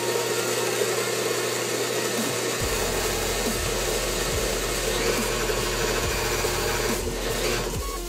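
Electric stand mixer running steadily, its motor whirring as it beats cookie dough.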